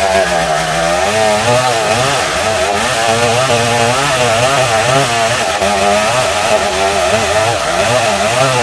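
Chainsaw sawing dense Bornean ironwood (ulin), its engine running loud and steady with the pitch wavering up and down as the load on the chain changes.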